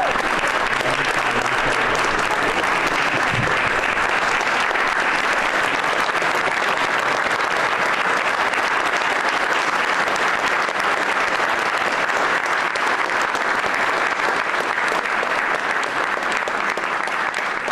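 Sustained applause from a room full of people, many hands clapping steadily at a strong level.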